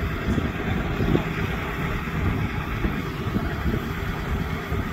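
Vehicle engine running steadily at idle, a constant low rumble with no revving.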